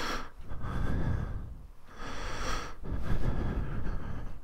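A person breathing heavily close to the microphone, with a loud breath about every two and a half seconds, over a steady low rumble.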